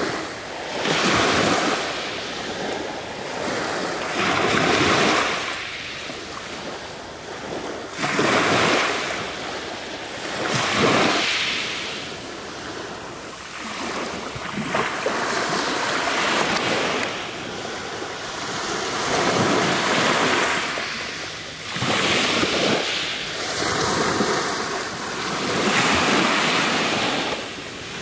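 Small waves surging up and washing back over a pebble beach, one wash every three to four seconds.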